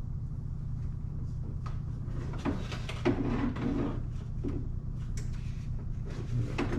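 Hands handling plastic parts and wiring in a car's engine bay: a few scattered light knocks and clicks over a steady low hum.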